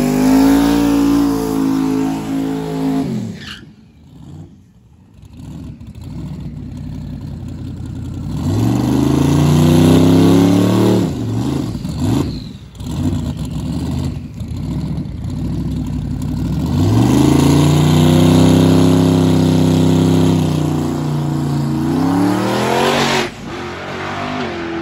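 Turbocharged Chevy S10 drag truck's engine revving hard in a burnout. Then come shorter rising revs while it stages, and near the end a long climbing rev that cuts off abruptly. The two-step launch limiter did not engage on this pass, so the engine ran up to about 6,000 rpm and into boost cut before the driver let off.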